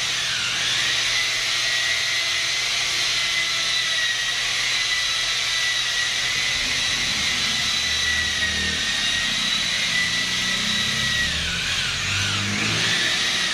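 Electric rotary polisher with a foam pad running steadily against a car windshield: a high, even whine whose pitch sags briefly about half a second in and again near the end.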